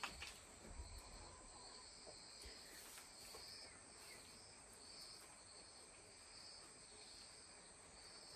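Near silence with faint insects chirping outdoors in short repeated pulses, about one a second, over a steady high hiss.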